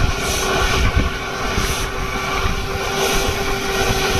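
Loaded Tata 14-wheel truck's diesel engine running steadily as the truck drives round a hairpin bend, a continuous low drone with a steady hum.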